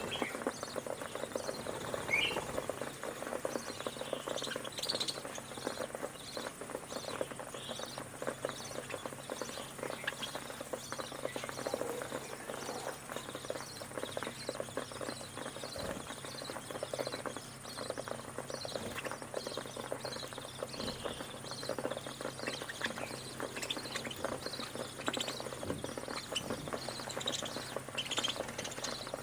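Budgerigars chattering with many short, high chirps throughout, over a dense patter of clicks from beaks pecking and cracking grain on the tray.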